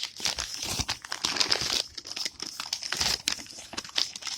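Packaging crinkling and crumpling as a package is unwrapped by hand, a busy run of irregular crackles.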